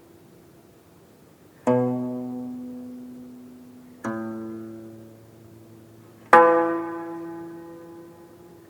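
Jeongak gayageum ensemble playing slow Korean court music: three single plucked notes, about two seconds apart, each ringing and slowly fading before the next. The third note is the loudest.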